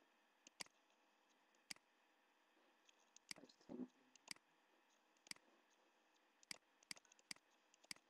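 Computer mouse button clicks, about nine sharp single clicks at irregular intervals, with a brief soft muffled sound just before the middle.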